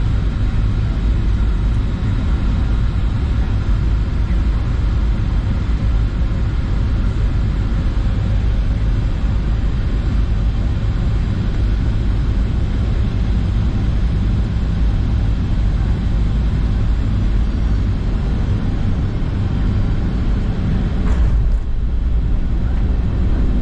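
Boeing 737-800 cabin noise on final approach: a steady low rumble of the CFM56 engines and rushing air. Near the end come two brief thumps about half a second apart as the wheels touch down on the runway.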